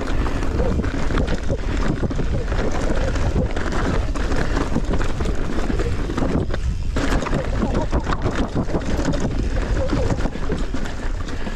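Wind buffeting the microphone while riding fast on a bicycle, with rolling noise underneath; it eases briefly about seven seconds in.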